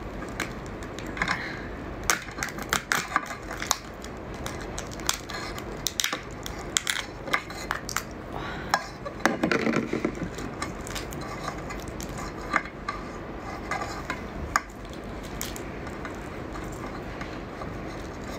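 Raw swimming crab being broken apart by hand: its top shell prised off and its body and legs snapped, giving a run of sharp cracks and clicks.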